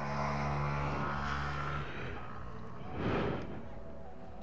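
Motor vehicle engine running with a steady low hum that stops after about two seconds, then a short whoosh about three seconds in.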